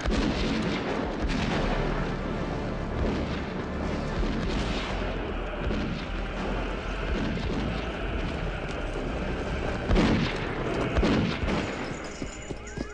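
Film soundtrack of a dense din of booms and cracks, with two louder blasts about ten and eleven seconds in.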